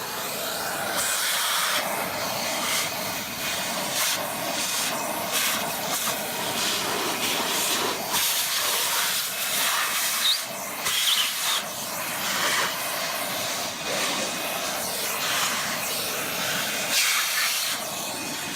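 Vacuum cleaner sucking up dust: a loud, uneven rushing hiss of air that keeps going, with a faint thin whine.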